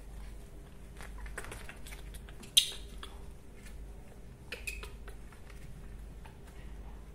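Scattered small clicks and rustles of handling, with one sharp click about two and a half seconds in, over a low steady hum.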